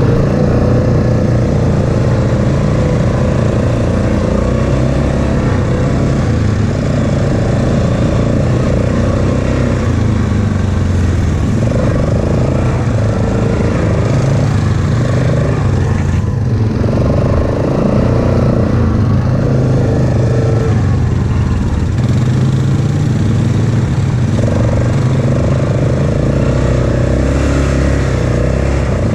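ATV engine running on a dirt trail, with the engine note stepping up and dropping back several times as the throttle is worked.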